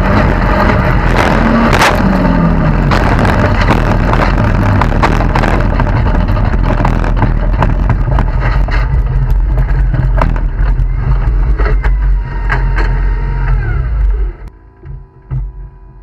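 Off-road race car driving hard over a rough desert dirt track: steady engine drone under loud rattling and sharp knocks from the rough ground. Near the end the noise eases, then cuts off suddenly, leaving a faint hum.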